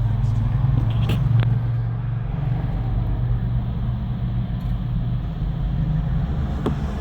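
BMW 750Li V8 engine idling with a steady low hum, with a few light clicks about a second in and near the end. The owner says this engine runs rough, misfires and hunts for revs once restarted after a cold start.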